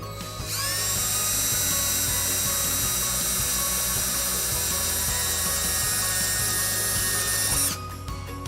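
Electric drill drilling a hole in the underside of a bumper. The whine speeds up about half a second in, runs steady for about seven seconds, and stops near the end.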